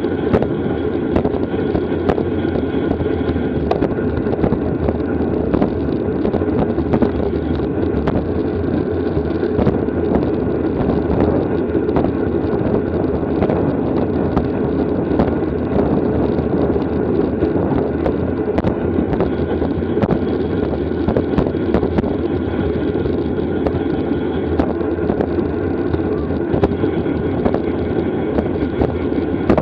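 Wind rushing over the microphone and the road noise of a racing bicycle moving at speed in a criterium, a steady rush with scattered small clicks.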